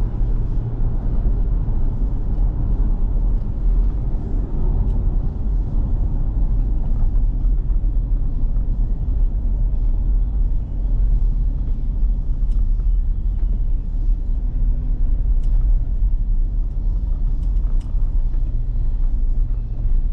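Steady low rumble of road and engine noise heard inside the cabin of a Toyota Fortuner SUV cruising on a highway.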